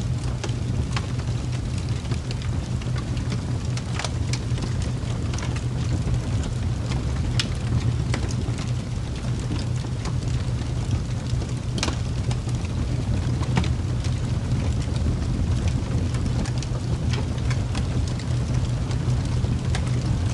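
Rain ambience used as a sleep background: a steady low rumble with a constant hiss and scattered, irregular drop taps.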